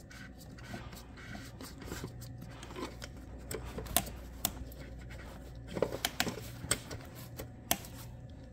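Audi Q7 oil filter housing cap being unscrewed by a gloved hand: scratchy rubbing with a few sharp clicks and taps from the second half on, over a steady low hum.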